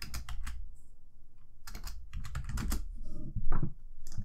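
Computer keyboard keystrokes: a few quick clacks at the start, a cluster about two seconds in, and a heavier knock about three and a half seconds in.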